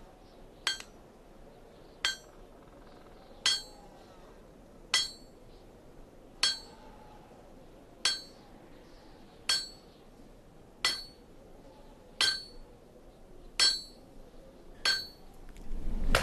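Slow, evenly spaced metallic clinks, one about every second and a half, each with a short ring: metal struck on metal.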